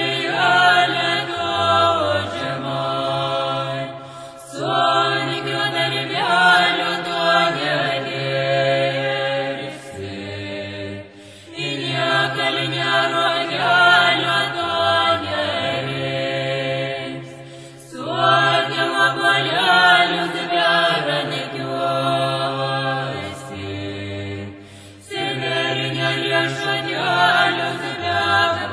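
Chant-like singing in long phrases over a low sustained drone, breaking briefly every six or seven seconds.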